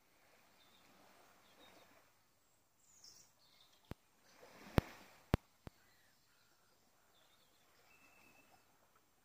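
Quiet seaside ambience with faint bird chirps. In the middle come four sharp clicks within about two seconds, over a brief swell of noise.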